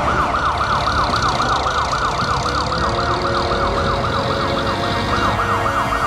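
Police siren sounding in a fast yelp, a rising-and-falling wail repeating about five times a second, over a low rumble.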